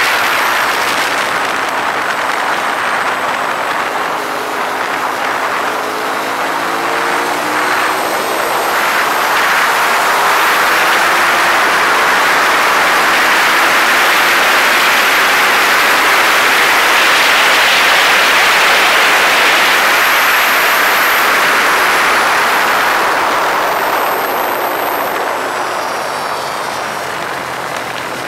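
Ducati 848's L-twin engine running hard at track speed under a loud rush of wind noise, which swells through the middle. The engine's pitch climbs and falls with revving and gear changes early on and again near the end.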